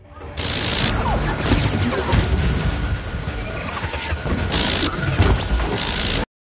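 Film battle sound mix: a Phalanx CIWS 20 mm Gatling gun firing in long continuous bursts, with blasts and impacts and music underneath. It starts about a third of a second in and cuts off suddenly near the end.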